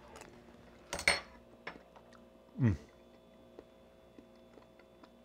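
A metal spoon clinks against a ceramic soup bowl about a second in, followed by a short falling hum from the taster and a few light taps of the spoon and tableware.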